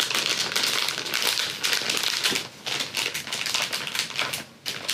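Clear plastic packaging of soft-plastic fishing lures crinkling as it is handled and worked apart. The crackling is dense and irregular, with short lulls about two and a half seconds in and near the end.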